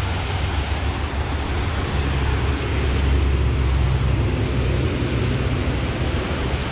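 Steady rush of water pouring over a dam spillway, with a heavy low rumble underneath.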